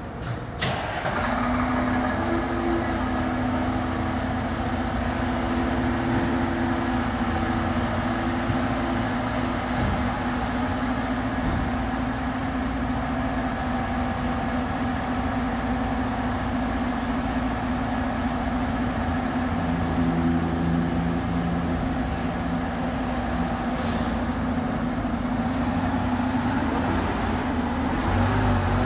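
A 2015 KME Severe Service Predator fire engine idling with a steady low diesel drone, after a short sharp burst about half a second in. It gets louder near the end as the rig starts to pull out.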